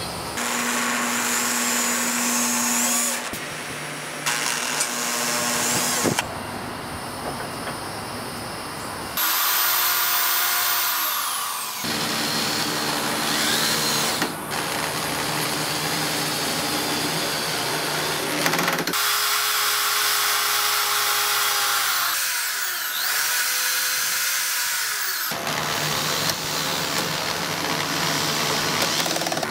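Power drill driving wood screws into pine boards, its motor running in several separate stretches that start and stop abruptly, with the whine falling in pitch as it winds down at the end of some runs.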